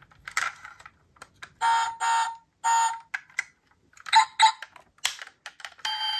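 Handling clicks, then electronic sound effects from a diecast toy car's built-in sound unit. Three short held tones come in quick succession, then two quick beeps, and a steady electronic tone starts near the end.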